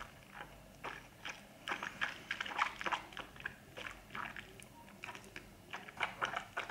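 Coconut oil being swished around a closed mouth for oil pulling: soft, irregular mouth clicks and smacks from the cheeks and tongue.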